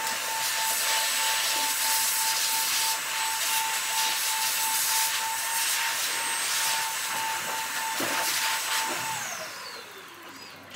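Electric blower motor running with a steady high whine over a rush of air. It is switched off about nine seconds in, and the whine falls in pitch as it spins down.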